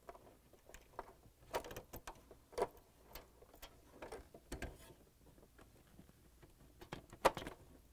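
Wire harness and plastic wire plug being handled and fitted onto a dishwasher's electronic control board: scattered small clicks and rustles, the sharpest near the end.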